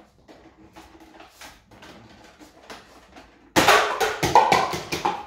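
Faint clicks and handling noise, then about three and a half seconds in a loud run of rapid knocks and clatter lasting over a second.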